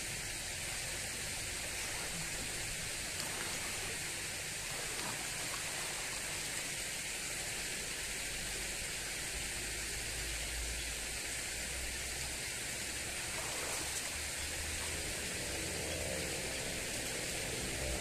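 Water rushing steadily in a shallow irrigation channel, with the splashing of a person bathing and wading in it.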